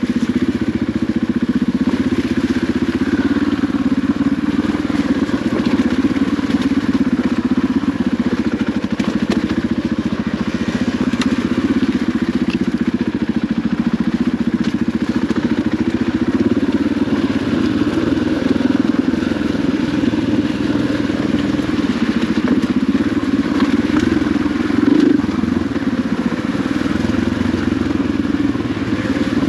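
KTM dirt bike's engine running at a steady, low throttle while the bike is ridden along the trail.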